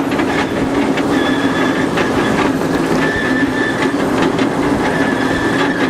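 Ride-on miniature train rolling along its track: steady wheel-on-rail running noise with faint rail clicks and a thin, high wheel squeal held throughout.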